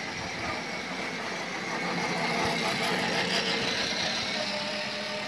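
Battery-powered children's ride-on toy motorcycle driving, its electric motor and gearbox giving a steady mechanical hum that grows a little louder in the middle.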